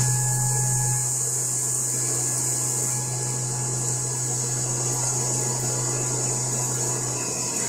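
CNC vertical milling machine cutting an aluminium block under flood coolant: a steady machine hum with the hiss of coolant spraying onto the cut.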